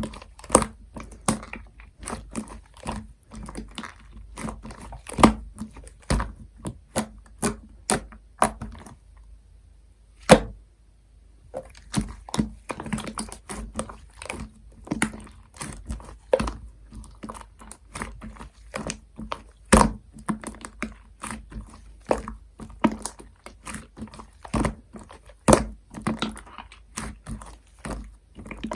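Hands kneading and squeezing clear slime mixed with shaving foam, giving sticky clicks and pops a few times a second. About nine seconds in there is a short pause broken by a single loud pop, then the kneading resumes.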